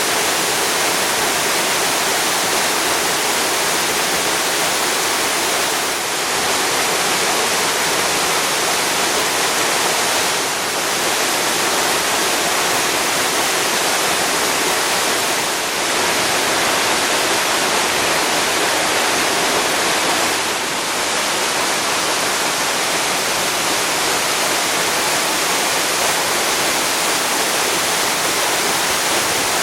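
Waterfall: a loud, steady rush of falling water, dipping briefly four times.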